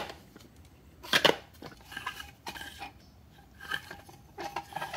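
Small metal parts and a plastic fan housing being handled: a few light metallic clinks and clicks, the loudest a quick pair about a second in, with fainter ticks later.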